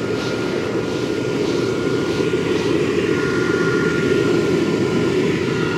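A steady mechanical drone with a thin, steady high whine running over it, like a motor or fan. The whine grows stronger about halfway through.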